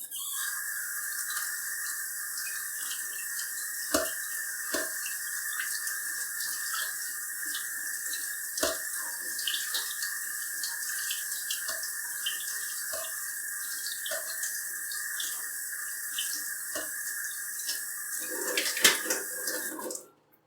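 Kitchen tap running steadily into the sink over a strainer of blueberries being rinsed under cold water, with a few knocks as the strainer is handled; the water is shut off near the end.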